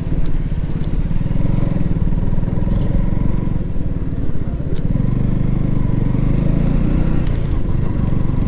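KTM Duke 200's single-cylinder engine running at low road speed as the motorcycle rolls and pulls away, briefly rising in engine speed past the middle.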